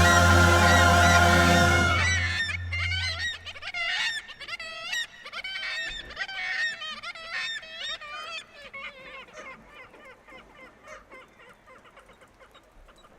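A colony of seagulls calling, many overlapping squawks, gradually growing fainter. Over the first couple of seconds a held music chord sounds and fades out.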